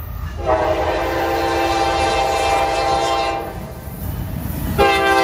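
Norfolk Southern diesel freight locomotive's multi-note air horn: one long blast of about three seconds, then a short blast near the end, over a low rumble. The long-then-short pattern is part of the signal blown when approaching a grade crossing.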